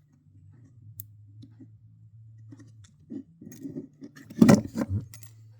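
Small parts of a model locomotive being handled and fitted by hand: a few faint clicks, then a run of louder clicks and scrapes about three seconds in, loudest near the end.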